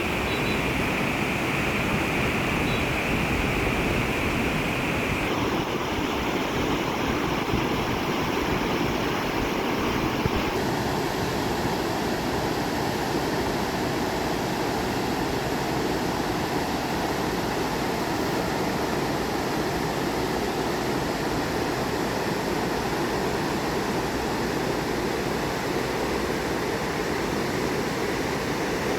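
Fast-flowing, swollen stream rushing, a steady noise of churning water. Its character shifts slightly twice, about five and ten seconds in, and a faint high steady hiss sits over it in the first few seconds.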